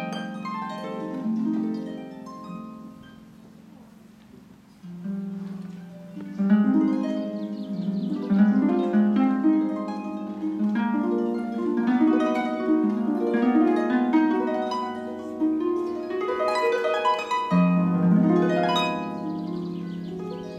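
Solo concert pedal harp: plucked notes and chords ringing and overlapping. The playing thins and fades about three to four seconds in, then comes back fuller from about five seconds on, with swept, rolled chords near the end.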